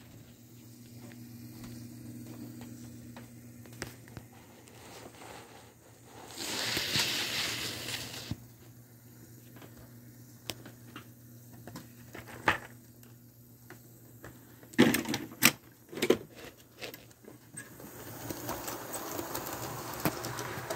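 Model trains running on sectional track: a steady low motor hum with scattered clicks of wheels over rail joints and turnouts. There is a louder rushing noise for about two seconds some six seconds in, and a burst of loud clicks near the middle.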